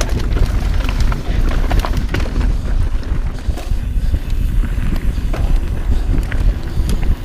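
Mountain bike riding fast down a dirt singletrack, heard from a camera on the rider: wind rumbling on the microphone, with the tyres on dirt and the bike clattering and clicking over bumps.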